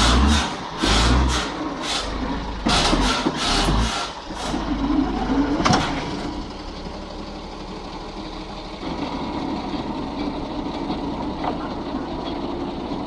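Rhythmic sawing through wood, about three strokes a second, which stops about four seconds in. After a sharp crack it gives way to a steady engine running.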